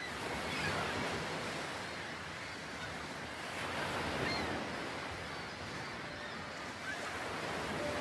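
Sea surf washing onto a shore, the noise of the waves swelling and easing every few seconds, with a few faint, short bird calls above it.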